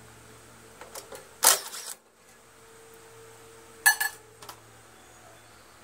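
Work noises from a cordless driver and metal parts while a bolt is taken out of a Kohler Command V-twin engine's cover: a short burst about a second and a half in, then a sharp metallic clink and clatter just before four seconds.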